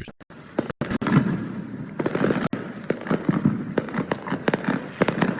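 Fireworks display going off: a dense run of rapid pops and bangs that thickens about a second in.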